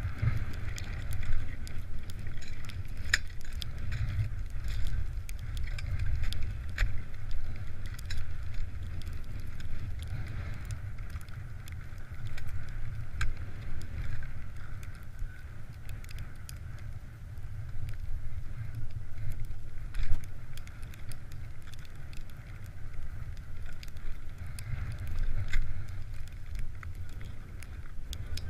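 Wind rumbling on a helmet-mounted action camera's microphone, with scattered sharp scrapes and clicks of skis and poles on crusty, icy snow.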